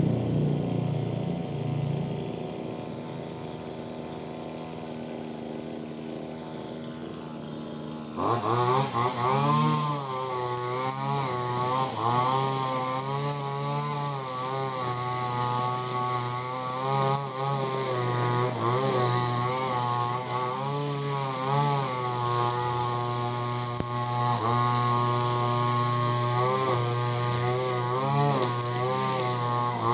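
Ogawa 26cc two-stroke brush cutter with a trimmer head and 2.2 mm round nylon line. It idles for the first several seconds, then is throttled up about eight seconds in and runs fast, its pitch dipping and recovering again and again as the line bogs in thick, long grass.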